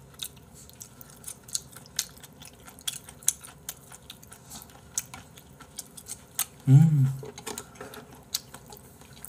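Eating sounds: chewing and scattered light clicks of chopsticks and a spoon against the malatang and porridge containers. A short murmur of a voice comes about seven seconds in.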